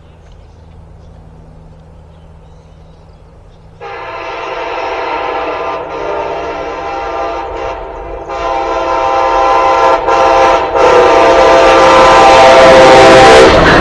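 Amtrak passenger train approaching: a low locomotive rumble, then from about four seconds in its air horn sounds a multi-note chord in long blasts with short breaks, growing louder as the train nears, with the rumble of the train rising under it near the end.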